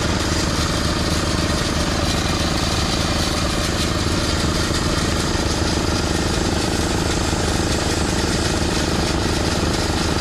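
Small engine running steadily at a constant speed, driving the air compressor that feeds the diver's air hose.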